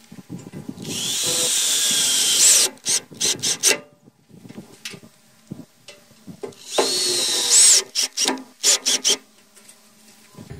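Ryobi cordless drill driving screws through a metal mailbox bracket into a wooden post. Two screws go in, each as a steady whine lasting one to two seconds followed by several short trigger bursts.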